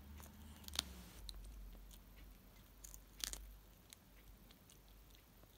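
Tabby cat biting and chewing fresh green leaves: quiet, irregular crunching with two sharper crunches, about a second in and about three seconds in.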